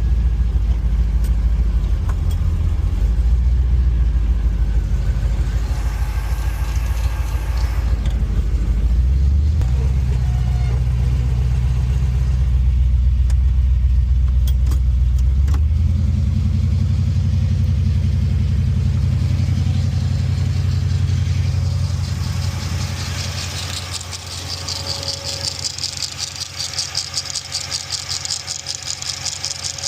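Freshly rebuilt LS V8 in a Chevrolet Monte Carlo SS running at low speed, its pitch stepping up twice. Near the end the engine sound drops away, leaving a steady high hiss with a fast flutter.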